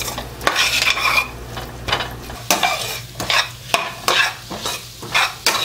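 A perforated steel spoon scraping and stirring goat liver pieces around a stainless steel kadai, about two strokes a second, over the sizzle of the liver frying in masala. The liver is being fried until it changes colour.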